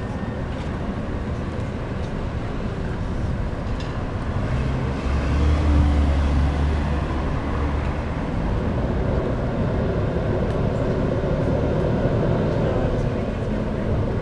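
Street traffic noise, with a heavy vehicle's low rumble swelling as it passes between about five and eight seconds in.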